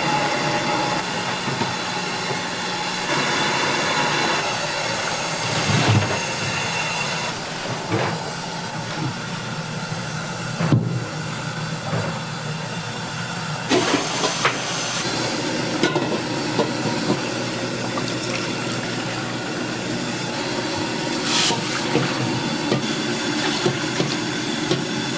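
Steady hiss of food cooking in a snack-bar kitchen, with a few sharp clanks of metal utensils now and then.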